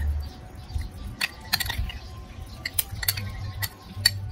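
Two metal spoons clinking against a ceramic bowl in irregular clinks while tossing sliced beef in its marinade.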